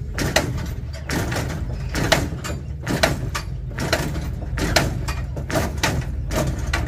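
Lowrider hopping on its hydraulics: a sharp clank or slam about every 0.9 s, over a steady low hum.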